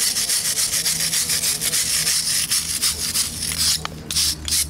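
Wire brush scrubbing a crumbling concrete step in rapid back-and-forth strokes, clearing off the loose material to prepare it for a patch. Near the end the strokes break off into a few separate scrapes.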